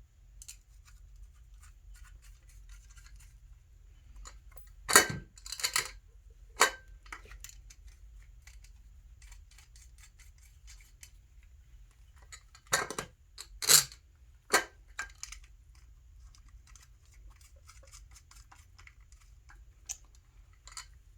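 Bolts and lock nuts being handled and fitted into a two-piece wheel's bolt circles by hand, with sharp clinks and knocks in two clusters, about five seconds in and again about thirteen seconds in, and light scraping and ticking between them.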